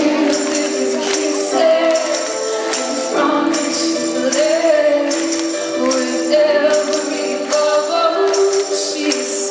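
Live band music over a concert PA, with a woman singing a wavering melody above held chords and a sharp percussive beat about twice a second.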